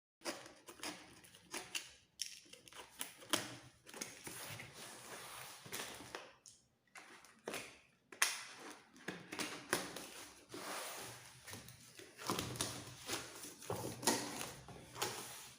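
A mailed package being handled and opened by hand: irregular rustling and crinkling of packaging with many small clicks and knocks.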